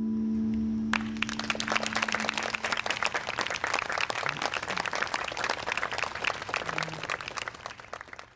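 An acoustic guitar's final chord rings and dies away, and about a second in an audience starts applauding. The applause fades out at the very end.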